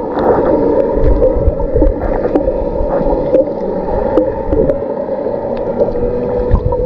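Sound picked up underwater by the camera while snorkelling over a coral reef: a muffled rumble of water with a steady droning hum and scattered sharp clicks and crackles.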